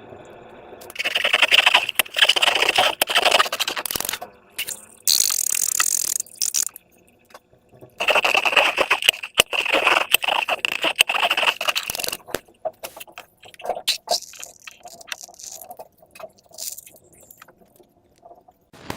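Slime and rubber balloons being handled, in crackling, scraping bursts, with scattered small clicks after about twelve seconds.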